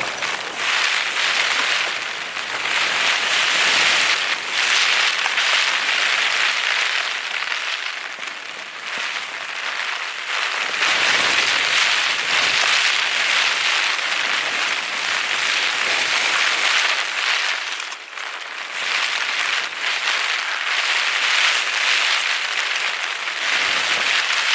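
Heavy rain on a tent in a storm, a dense hiss that swells and eases every few seconds as the gusts come and go.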